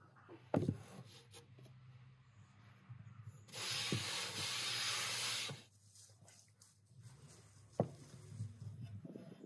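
A round wooden pastry board knocks down onto the table; about three and a half seconds in, a hand sweeps flour across the board's wooden surface, a dry hiss lasting about two seconds. Another sharp knock comes near the end.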